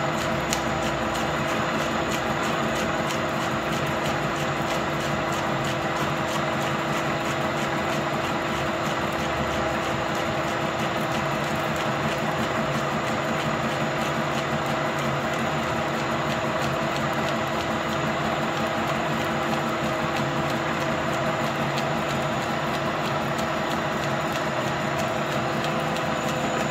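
Okuma lathe turning a long steel shaft under power feed: a steady machine hum with constant tones from the spindle drive and gearbox, over a fine, even crackle of the tool cutting and chips breaking off.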